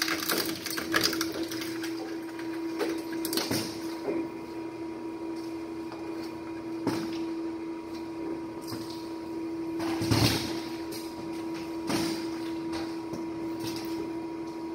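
Industrial electronics shredder running with a steady mechanical hum, with several cracks and crunches as hard drives and electronics are fed through it; the loudest crunch comes about ten seconds in.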